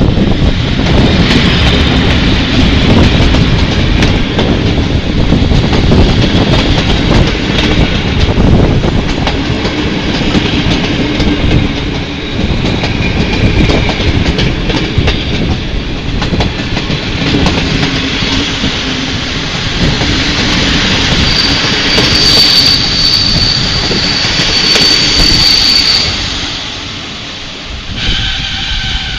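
PKP EP07 electric locomotive and a long train of passenger coaches rolling slowly past, steel wheels clattering and knocking over rail joints. A high, steady squeal comes in for several seconds in the second half as the train brakes into the terminus. A steady pitched tone starts near the end as the noise drops away.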